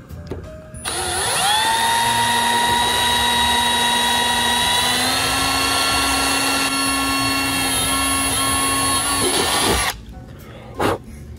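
Cordless drill drilling a hole through a thin metal strip: its motor whine starts about a second in, runs steadily, steps slightly up in pitch about halfway, and stops near the end. A single short sharp sound follows about a second later.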